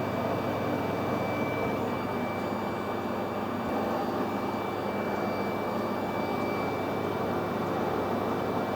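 Metal lathe running steadily, an even motor and gearing hum with a faint high whine.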